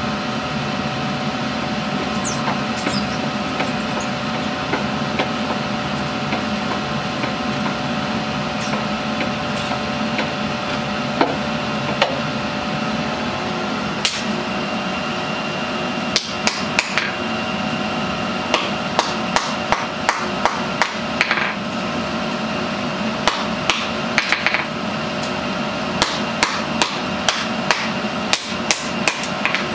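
Hand hammer striking a red-hot steel knife blade on an anvil while forging it to shape. The blows come in runs of quick strikes, about two or three a second, starting about halfway in. A steady machine hum runs underneath.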